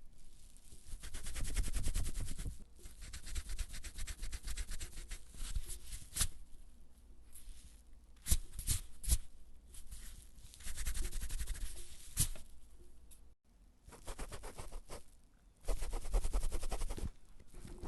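Pencil eraser rubbing back and forth on paper in several spells of quick scrubbing strokes, each lasting a few seconds with short pauses between, and a few sharp ticks near the middle.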